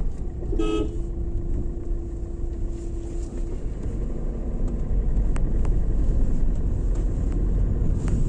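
Low road and engine rumble inside a moving car's cabin, with a vehicle horn sounding about half a second in: a short toot, then a steady horn tone held until about three and a half seconds in.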